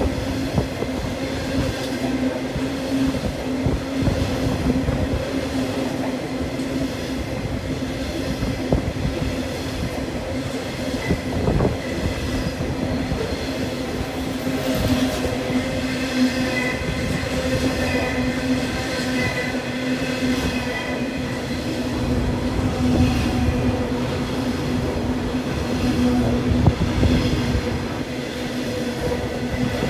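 Coal hopper wagons rolling past: steady wheel-on-rail noise with a low hum and repeated clattering knocks. Thin high-pitched tones come and go through the second half.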